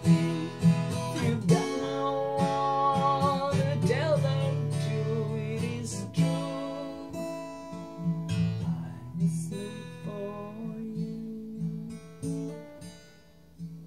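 Acoustic guitar strummed with a man singing over it, his voice wavering and sliding on held notes in the first few seconds; the playing grows quieter toward the end.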